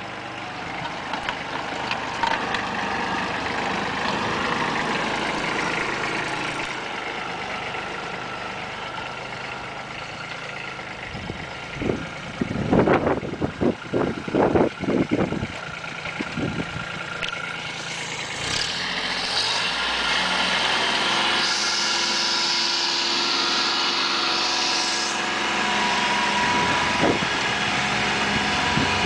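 Compact tractor engine running steadily while pulling a plough through garden soil, with a cluster of loud thumps about halfway through.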